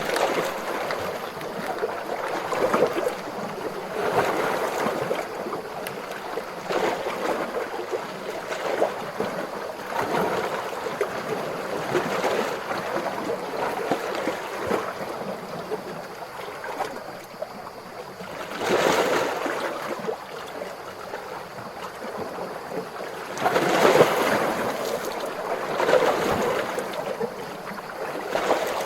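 Calm ocean waves washing and lapping, a continuous wash of water that swells and ebbs every couple of seconds, with two bigger surges about two-thirds of the way through.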